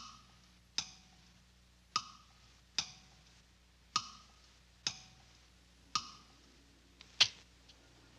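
A series of sharp, short ticks about once a second, in an uneven tick-tock rhythm, each with a brief ringing tail; a pair of quicker clicks comes near the end.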